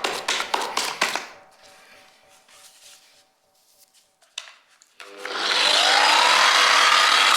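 A few clicks and knocks, then about five seconds in the electric motor of a Parkside wall and floor sander starts, its whine rising as it spins up to a steady, loud running noise.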